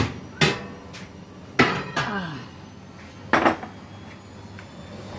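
Four or five sharp metal clanks and knocks, with a short falling squeak about two seconds in: a baking dish being put into an oven.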